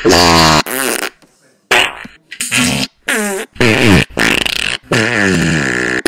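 A rapid string of about eight fart noises, one after another, each a short pitched blast lasting about half a second, several sliding down in pitch.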